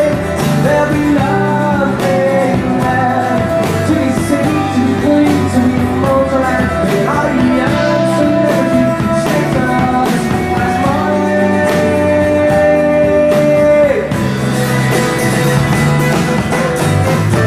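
Live rock band playing a song with acoustic and electric guitars and keyboard, and singing over it. A long note is held for a few seconds about two-thirds of the way through.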